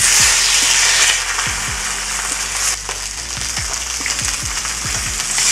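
Pejerrey (Argentine silverside) laid skin side down in hot olive oil, sizzling in a frying pan. The sizzle starts suddenly as the fish hits the oil, is loudest for about the first second, then settles to a steady hiss.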